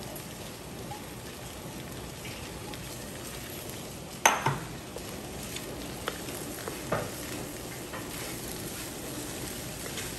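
Kimchi fried rice and beef sizzling in a nonstick wok as they are stirred with a wooden spatula. A sharp knock on the pan comes about four seconds in, and a few lighter clacks follow.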